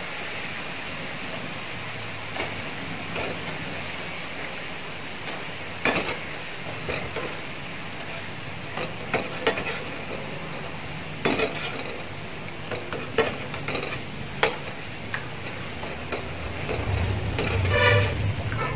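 Boondi (gram-flour batter drops) deep-frying in hot oil with a steady sizzle, while metal utensils stir and scoop them out with a wire skimmer, knocking against the pan several times.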